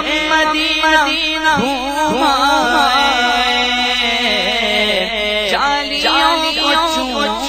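A man singing an Urdu naat solo into a microphone. His voice holds long notes and slides and quavers through drawn-out melodic ornaments.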